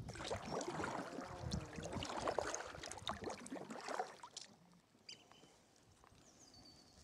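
Kayak paddle strokes: blades dipping and water splashing and dripping in many small splashes for the first four seconds or so, then only faint lapping.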